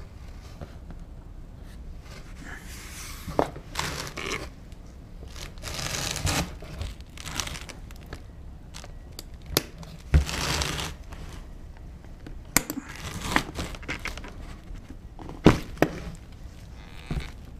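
Paper tissue and cardboard rustling and crinkling as they are handled, in several short bouts, with a few sharp clicks and knocks from the steel battery safe box being moved and opened.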